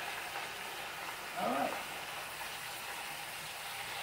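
Flour-coated chicken pieces deep-frying in a pot of hot oil: a steady sizzle. A brief voiced sound comes about one and a half seconds in.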